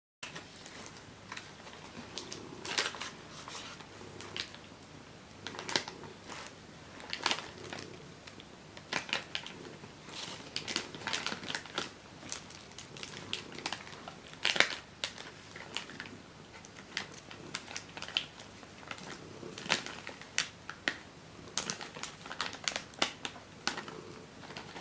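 Crinkling and rustling of plastic and foil sweet wrappers as they are handled, in irregular bursts of sharp crackles.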